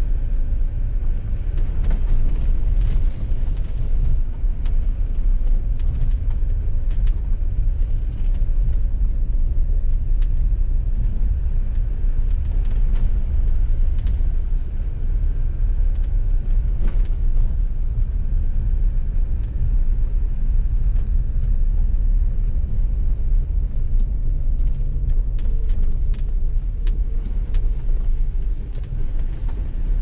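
A 4x4 driving along a rutted, puddled dirt track, heard from inside the cabin: a steady low rumble of engine and tyres, with scattered knocks and rattles over the bumps.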